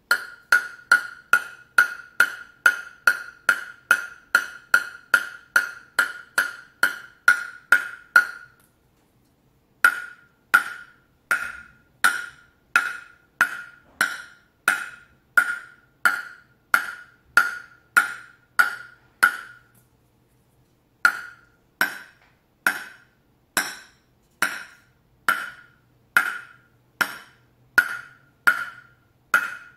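A ping-pong ball bounced again and again on a bare table tennis blade, a sharp ringing tock at each bounce, about two a second. The bouncing comes in three runs, with short breaks about eight seconds in and about twenty seconds in.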